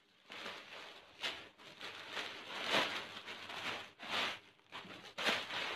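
Plastic packaging crinkling and rustling in irregular bursts as a courier poly mailer is opened by hand and a saree in a clear plastic bag is pulled out.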